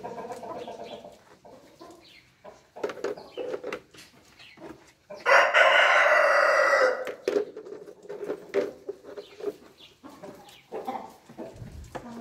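Australorp hens clucking in short repeated calls, and a rooster crows once about five seconds in, one long call of nearly two seconds that is the loudest sound.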